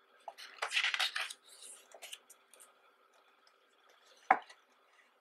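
Photobook page turned by hand: a loud paper rustle lasting about a second near the start, a few softer rustles after it, then a single sharp tap a little after four seconds in.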